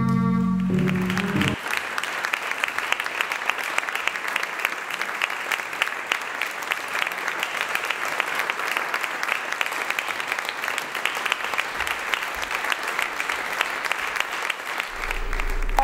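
Concert audience applauding steadily, coming in about a second in as the last held notes of the music stop. A low hum comes in near the end.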